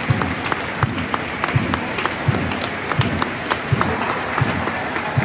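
Football crowd clapping in time over a general crowd din, with a steady thudding beat about three times every two seconds.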